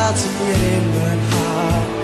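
Music with steady bass notes and held chords.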